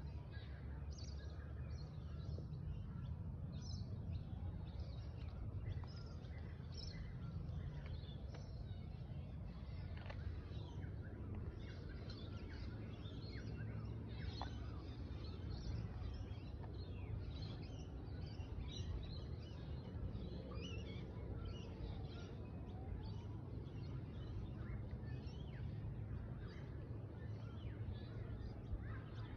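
Small birds chirping, many short calls a second, over a steady low outdoor rumble.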